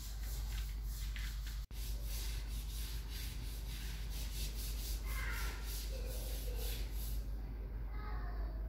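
Plastic jug rubbing and scraping against the rim of a tin while thick yogurt is poured from it, a soft, steady rustling scrape over a low hum.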